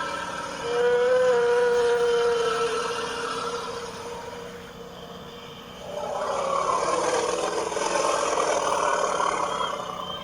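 Designed sound effect of a Diplodocus call: a long, held pitched call with a steady tone, then about six seconds in a second, rougher and noisier call lasting about four seconds.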